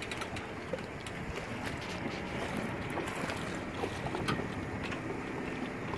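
Wind buffeting the microphone over water lapping, with a few faint clicks.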